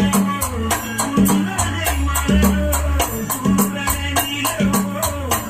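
Music: a remastered old song with a steady beat and deep bass, played from a phone over Bluetooth through a class D amplifier and its speakers.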